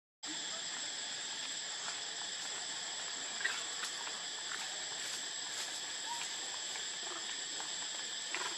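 Steady, high-pitched drone of a chorus of insects, with a thin steady tone on top; the sound cuts out for a moment right at the start.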